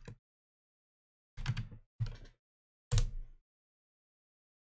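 Computer keyboard keys clattering in three short bursts of typing.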